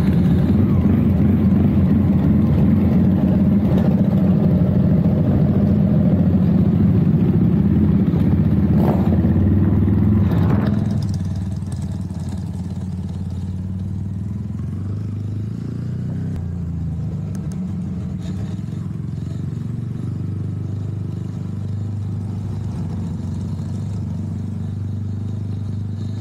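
Yamaha 150 cc single-cylinder motorcycle engine running steadily while riding at low speed, dropping to a quieter, lower-revving drone about eleven seconds in.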